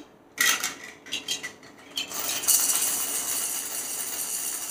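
Plastic baby rattle shaken: a few separate clicking shakes, then a steady rattling from about halfway in.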